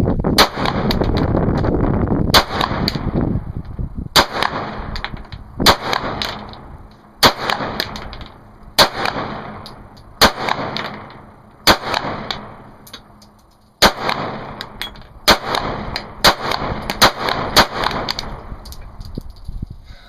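A 9mm handgun firing a long string of single shots, a dozen or more, roughly one to two seconds apart, each crack trailing off in a short echo.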